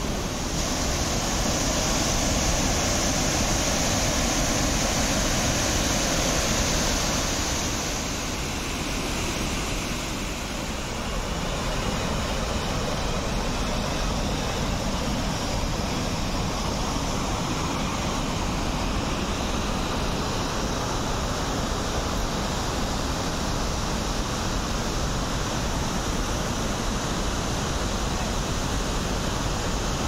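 Dhuandhar waterfall on the Narmada River: a steady rush of white water pouring over rocks and churning below. Its high hiss softens a little about eight seconds in.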